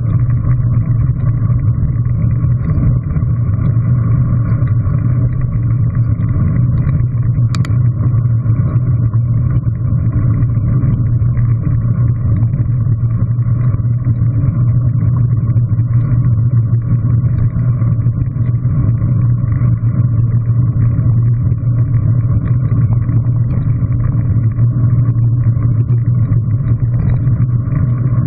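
Steady wind rumble and tyre noise on a bicycle-mounted GoPro Hero3, riding at about 20 mph on a gravel path. A single click comes about eight seconds in.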